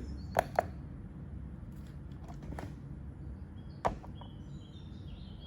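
A few sharp clicks and knocks of a small cordless drill being handled and set down on a weighing scale: two close together near the start and one about four seconds in. Faint high chirps of small birds in the background near the end.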